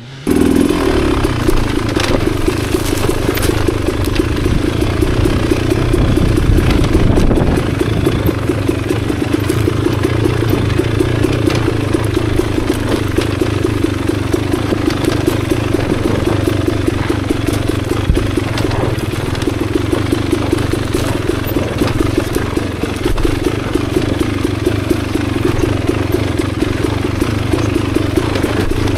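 Beta Xtrainer 300 two-stroke single-cylinder dirt bike engine running at low, fairly steady revs.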